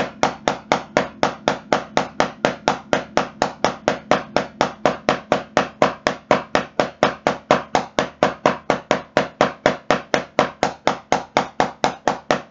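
Wooden drumsticks playing steady alternating single strokes on a drum practice pad, about five even taps a second at a matched level, as a slow 16th-note technique exercise.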